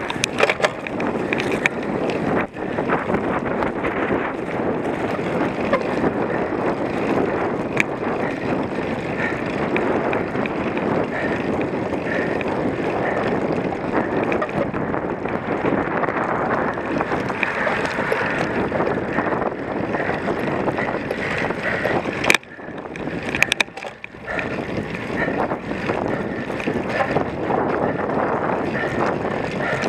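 Wind rushing over the microphone as a cyclocross bike is ridden hard over rough ground, with scattered sharp clicks and knocks from the bike. The rush breaks off briefly about two-thirds of the way through, then comes back.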